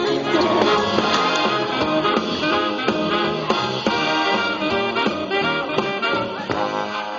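Dance music with brass instruments and a steady beat.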